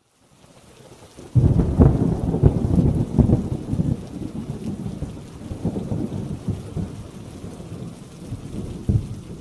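Thunderstorm: rain hiss fading in, then a loud crack of thunder about a second and a half in that rumbles on and slowly dies away, with another thunder crack near the end.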